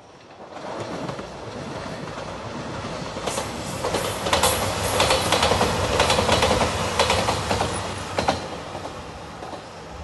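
JR Shikoku 2700 series diesel train passing close by, its engines running and its wheels clacking rapidly over the rail joints. The sound builds, is loudest for several seconds as the cars go past, then fades as the train moves off.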